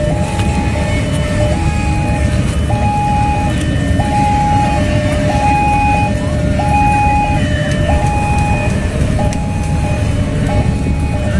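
Railway level-crossing warning signal sounding a repeating two-tone chime, high and low tones alternating about every two-thirds of a second, over a steady low rumble of road traffic and idling motorcycles.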